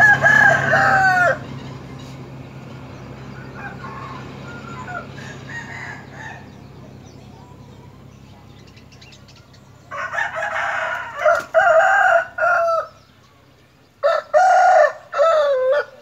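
Rooster crowing: drawn-out, wavering crows right at the start, again about ten seconds in, and again about fourteen seconds in, the last one falling in pitch at the end. Fainter calls come in between.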